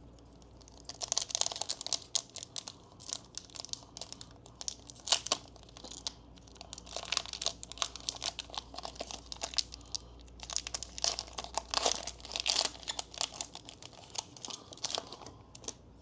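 Foil Pokémon booster pack wrappers being ripped open and crinkled by hand: runs of crackling and tearing with short pauses between them.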